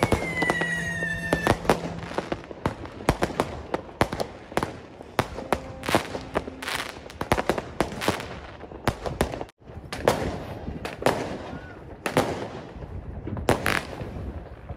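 New Year's Eve fireworks going off: a dense, irregular run of bangs and crackling firecracker pops from rockets and ground fireworks. In the first second and a half a firework whistle falls in pitch.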